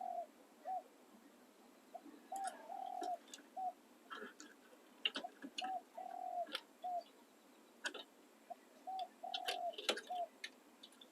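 Spotted dove cooing: repeated three-note phrases, short, long, short, about every three and a half seconds. Scattered sharp clicks and faint small-bird chirps fall between the phrases.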